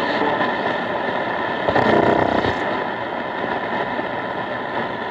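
Shortwave radio receiver hissing with static and noise on a weak, barely intelligible broadcast signal. A brief pitched snatch of the station's audio comes through about two seconds in.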